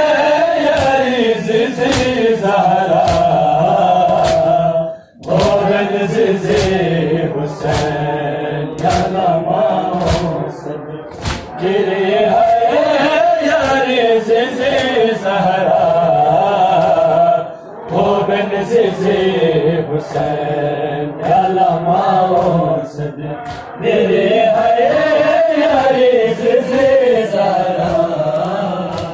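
Men's voices chanting a Muharram noha lament in a steady, repeating melody, with sharp rhythmic strikes about once a second from matam, hands beating on chests. The chant breaks off briefly about five seconds in and again past the middle.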